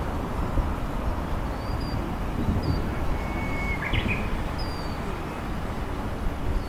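Birds chirping outdoors: several short high chirps and one longer whistled note a little past the middle, over a steady low rumble.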